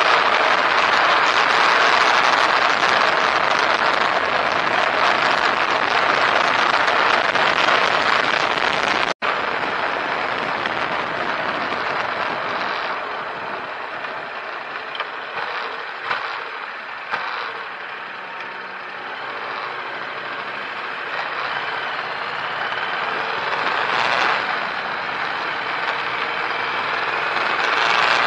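Road and engine noise inside a moving car, picked up by a dashcam microphone as a steady rushing noise. It cuts out for an instant about nine seconds in, then runs quieter, with a few faint clicks.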